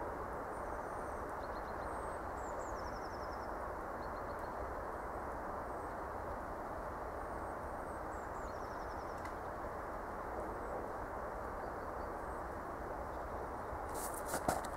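Steady low outdoor background rush with small songbirds calling faintly over it: high chirps and two quick runs of descending notes. A few sharp clicks and rustles near the end.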